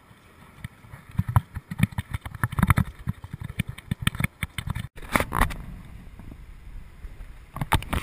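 Handling noise on a body-worn action camera: a rapid, irregular run of knocks and rubs as it is moved, breaking off abruptly about five seconds in, with a few more knocks near the end.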